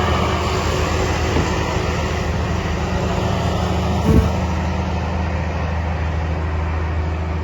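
A steady low mechanical drone with a constant hum, like a running engine or motor, with one short chirp-like sound about four seconds in.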